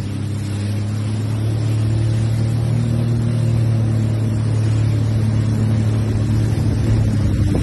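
Sea-Doo RXT jet ski engine running at a steady cruising speed, a constant low drone, with water rushing under the hull as it moves through floodwater.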